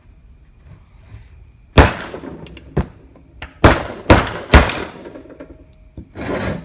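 Hammer striking a salvaged electric motor's metal casing: five sharp, irregularly spaced blows, the loudest in a quick run of three, then a brief scraping noise near the end. The hammering is meant to break off screws seized in the motor case.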